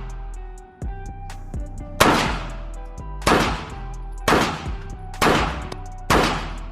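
Five pistol shots fired about a second apart, each a sharp bang with a long fading tail.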